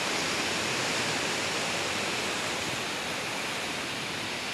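Steady hiss of sea surf breaking on a beach, an even wash with no single wave standing out, easing slightly toward the end.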